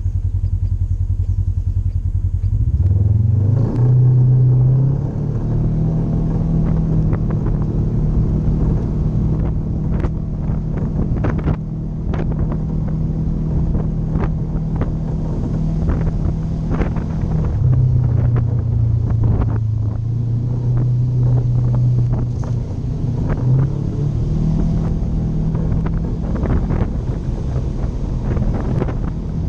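Polaris RZR 900 side-by-side's twin-cylinder engine running under way, rising in pitch about three seconds in, holding steady, dropping back about halfway through and rising again near the end. Frequent sharp knocks and rattles sound over the engine.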